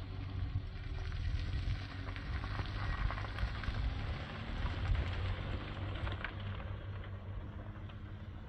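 A vehicle driving, with a steady low rumble and a gritty crackle; it gets louder around the middle and fades toward the end.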